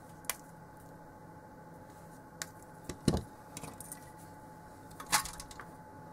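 A series of irregular clicks and knocks, with one heavier thud about halfway through, as pliers, a small circuit board and a battery clip's wires are handled on a workbench. Under them a fume extractor keeps up a faint steady hum with a thin whine.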